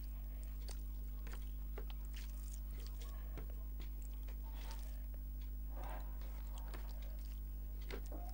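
Close-miked eating sounds: wet chewing and small mouth clicks, with fingers squishing rice into fish curry on the plate, over a steady low hum.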